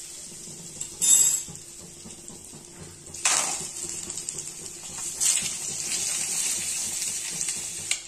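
Butter sizzling with a steady hiss in a hot iron kadai, with sudden surges of louder sizzling about one, three and five seconds in; the later two come as whole peeled boiled eggs are set into the hot butter.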